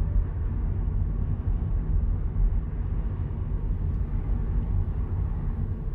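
Steady low road rumble inside the cabin of a Hyundai Ioniq Electric as it drives. The electric car makes no engine note, so the sound is an even, low-pitched haze of tyre and road noise.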